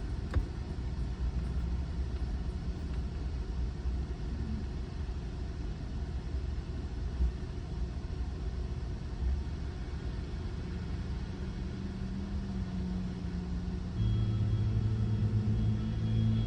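Steady road and engine rumble heard from inside a moving car's cabin. Near the end a louder steady low hum joins in.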